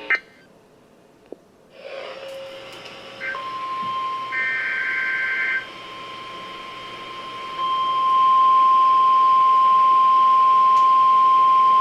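NOAA Weather Radio's steady single-pitch warning alarm tone, which precedes a watch or warning broadcast. It comes in after a click, a moment of silence and radio hiss, and grows much louder about halfway through. Briefly, a few higher tones sound with it.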